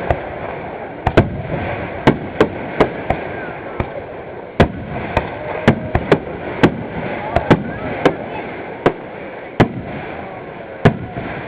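Aerial fireworks shells bursting overhead: a rapid, irregular series of about twenty sharp bangs, sometimes two or three within half a second, over a steady background noise.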